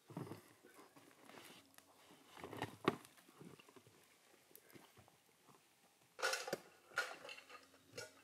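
Faint, scattered rustling and light knocks of someone handling things at a small campfire, with one sharp click about three seconds in and a few louder rustles near the end.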